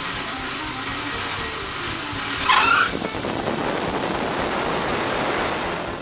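Wood-Mizer LT40HD band sawmill running, its band blade being engaged and starting to turn. A brief wavering squeal about halfway through is the loudest moment, and the blade then runs on with a denser, steady noise.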